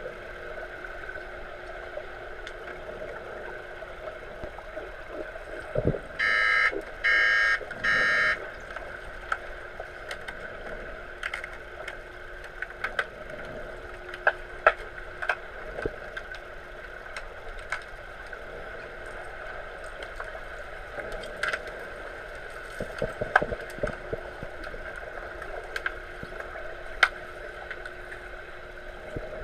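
Underwater hockey referee's underwater buzzer sounding three short blasts, heard through the water against a steady pool hum. Scattered sharp clicks and knocks from play follow.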